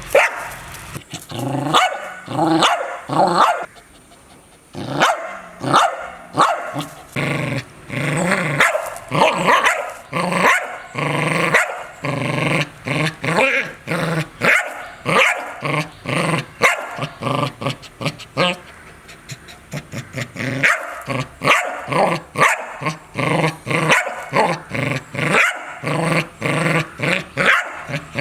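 A dog barking in rapid, repeated runs, with growling between the barks.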